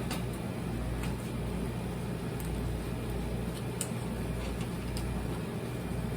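Air fryer running with a steady hum, its fan and heater cooking a tortilla pizza. A few faint light clicks sound over it.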